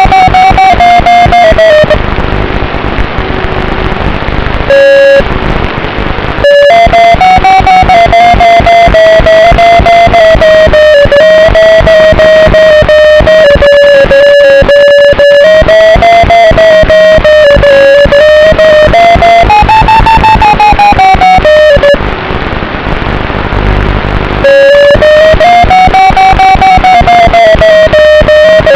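FPV quadcopter's motors whining, loud and distorted, the pitch rising and falling smoothly with the throttle. The sound eases off twice, about two seconds in and again near the end, before the motors pick up again.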